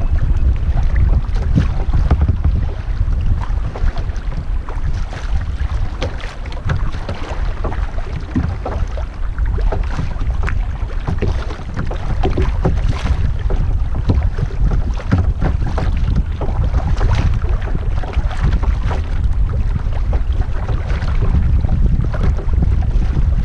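River water rushing and splashing around a kayak running small rapids, with many short splashes over a steady churn. Heavy wind buffeting on the microphone adds a low rumble throughout.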